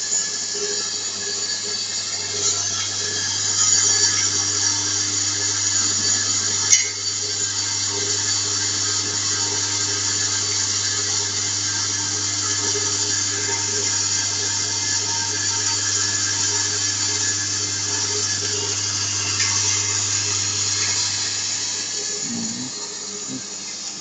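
Vibratory bowl feeder of an eyelet machine running: a steady low electromagnetic hum, with metal eyelets chattering and rattling against the steel bowl as they feed along its spiral track. A single sharp click comes about seven seconds in, and the hum fades near the end.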